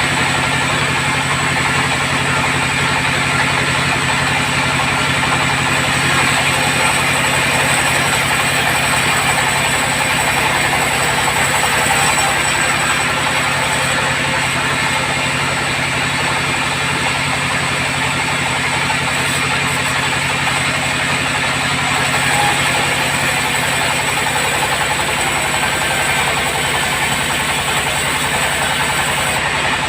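Sawmill bandsaw running steadily: a continuous machine hum with a dense hiss over it, unchanging throughout.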